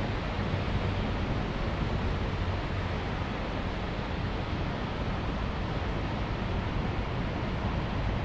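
Heavy summer rain falling steadily, a dense even hiss with no letup.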